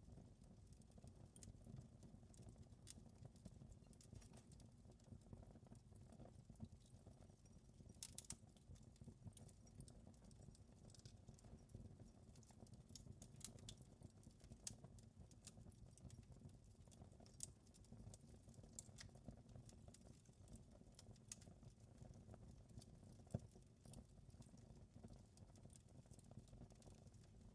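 Faint wood fire crackling, with irregular sharp pops over a low steady rumble; one pop stands out louder near the end.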